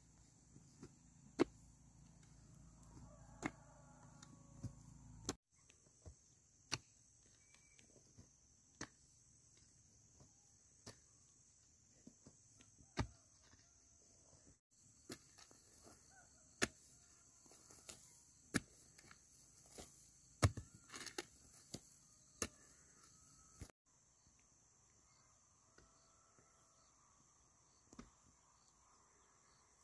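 Sharp knocks or taps at irregular intervals, about one every second or two, over a steady high-pitched hiss.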